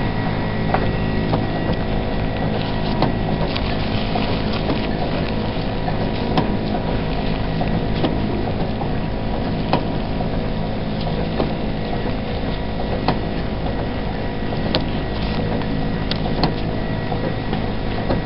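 Steady mechanical hum of room machinery with many low tones, dotted with scattered light clicks and rustles as gloved hands handle a gauze dressing close to the microphone.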